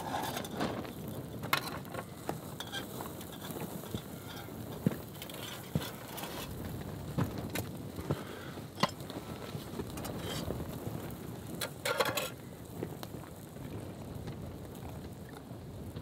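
Campfire crackling and sizzling, with scattered sharp pops and clicks over a low steady hiss and a louder burst of clicks about twelve seconds in.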